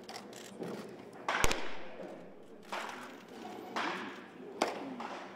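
Pitched baseballs smacking into catchers' mitts in a busy bullpen. One sharp, loud pop comes about a second and a half in, and three more follow over the next three seconds.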